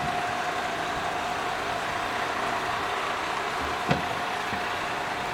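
Diesel locomotive idling: a steady engine and blower noise with a steady high hum, and a single sharp knock about four seconds in.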